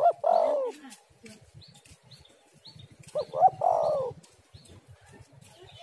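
Spotted dove cooing: two phrases about three seconds apart, each two short notes followed by a longer falling coo.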